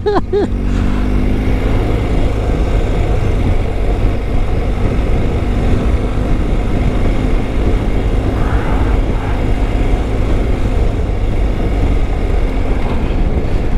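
BMW GS Adventure motorcycle running steadily as it is ridden along, a continuous low hum.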